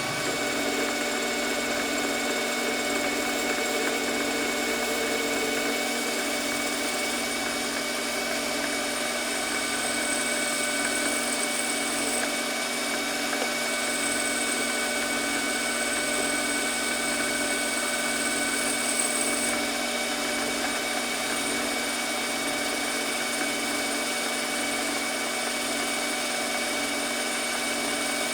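Metal lathe running steadily while taking a roughing turning cut on a grinder arbor, with a steady mechanical whine. A faint high whistle, likely the cut itself, comes and goes twice in the middle.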